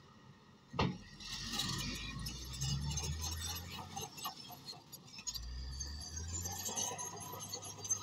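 Komatsu crawler bulldozer at work pushing soil: a low engine rumble under irregular metallic clinking and rattling from its steel tracks. A sharp knock comes about a second in.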